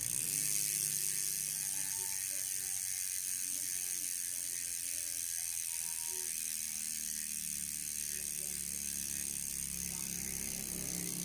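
GUB rear hub's six-pawl freehub clicking as it freewheels, a steady fast run of ratchet clicks that blur into a buzz.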